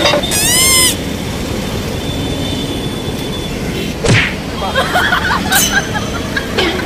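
Steady street-traffic and riding noise. Near the start a short pitched tone dips and rises again, about four seconds in a quick falling sweep cuts across, and a jumble of brief sounds follows.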